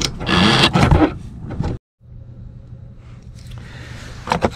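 Broken steel slide-out cable being pulled out from behind the pulleys, scraping and rattling for about a second. After a cut, a steady low hum, with a few sharp clicks near the end as a cardboard box is handled.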